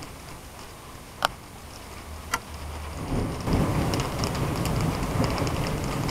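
Rain falling, turning heavier about three seconds in, with many small drop ticks. Two sharp clicks a little over a second apart come before it picks up.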